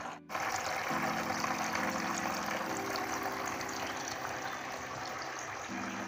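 Water from a small homemade tabletop fountain pouring from its spout and trickling down into the basin, a steady splashing trickle that cuts out briefly just after the start. Soft background music chords change about once a second underneath.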